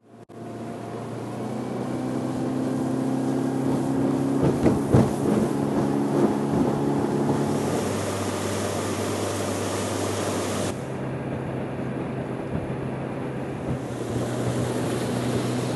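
Mercury outboard motor driving an aluminum fishing boat at speed: a steady engine drone over the rush of water and wind. A few sharp thumps come about four to five seconds in, and the sound changes abruptly twice in the second half.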